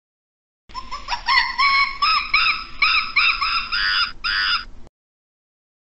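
A primate calling: a quick series of high, arched whoops, two or three a second, starting about a second in and cutting off abruptly after about four seconds.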